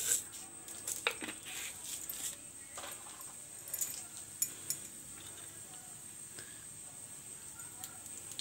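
Cumin seeds crackling in hot oil in a non-stick pan: scattered sharp pops and ticks, busiest in the first few seconds and thinning out after about five seconds.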